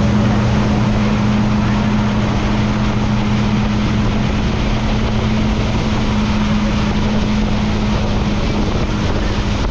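Motorboat engine running at a steady pitch, with a dense rush of wind and water over it.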